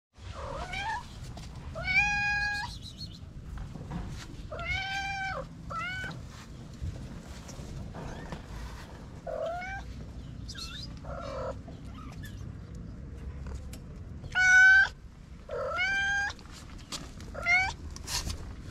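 Young kittens mewing over and over: about ten short, high-pitched mews that rise in pitch, with one louder call about three-quarters of the way through.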